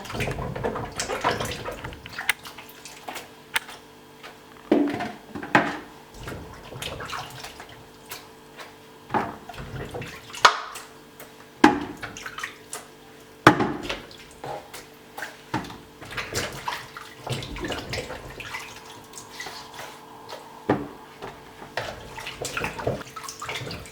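Vegetables being washed by hand in a kitchen sink: water running and splashing, with irregular sharp clatters of produce and a bowl being handled.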